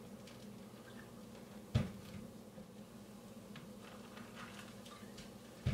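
Faint kitchen handling sounds over a low steady hum: a few light ticks, with a sharp knock a little under two seconds in and another at the very end.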